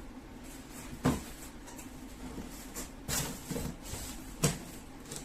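A few short knocks and clunks of a microwave and its parts being handled and set down: one sharp knock about a second in, a cluster around the middle, and the loudest near the end.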